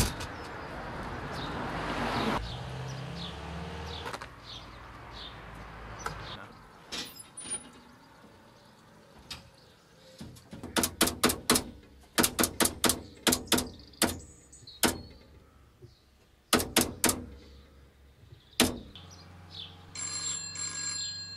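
A wooden front door knocks shut, then a telephone box's handset and keypad click in quick runs as a number is dialled, with birds chirping in the background. A steady electronic tone comes on near the end.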